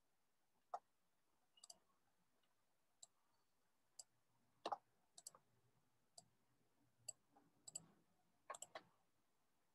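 Near silence broken by about a dozen faint, irregular clicks of a computer keyboard and mouse, some coming in quick pairs and a small cluster near the end.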